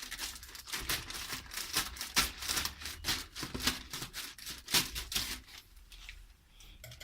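Scissors cutting open a parcel's packaging: a fast, irregular run of sharp snips and crinkling that dies away about six seconds in.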